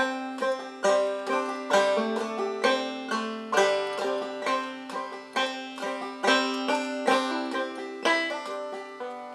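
Background music: a lively plucked-string instrumental tune, with quick notes that die away fast over a steady low note.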